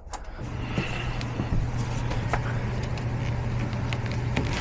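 An HVAC system, switched back on, starts about half a second in and runs with a steady low motor hum over rushing air, with a few light clicks.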